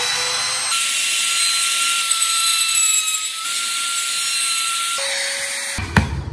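Compact trim router running at speed and cutting into a pine board, a steady high whine with a constant tone. Near the end the whine gives way to a few sharp taps as a hand chisel works into the wood.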